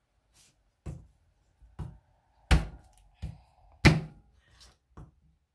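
Kitchen knife knocking on a plastic cutting board while cutting garlic: about six separate knocks at uneven spacing. The two loudest come about two and a half and four seconds in, with a faint ring after them.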